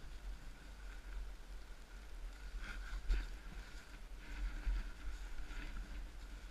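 Gloved hands digging and scooping snow away from a stuck snowmobile's track, with a few short scrapes and knocks over a steady low rumble on the helmet-camera microphone.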